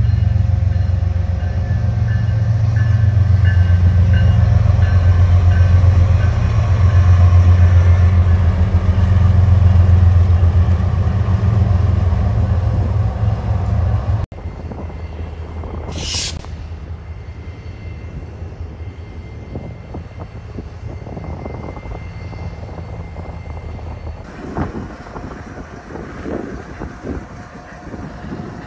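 BNSF diesel locomotives hauling a freight train past, their engines running with a loud, steady low rumble. About halfway it cuts to a quieter rumble with a brief high-pitched sound, and wind buffets the microphone near the end.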